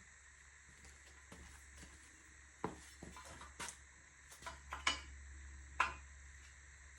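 Irregular metallic clinks and taps of hand tools against a steel wheel rim while a tire valve stem is being seated, about a dozen light knocks with four sharper clinks, over a low steady hum.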